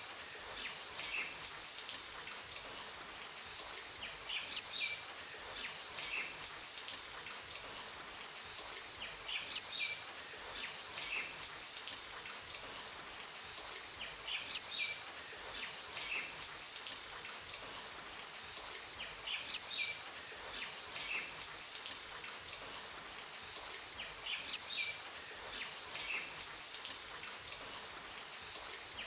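Rain-and-birds ambience: a steady hiss of rain with short bird chirps that come in clusters about every five seconds, repeating like a loop.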